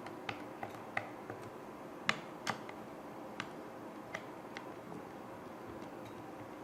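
Light, irregular clicks and ticks of a Phillips screwdriver and small screws against the plastic housing of a gas-detection wearable being taken apart, about nine in the first five seconds, the loudest a pair about two seconds in. A faint steady hum lies underneath.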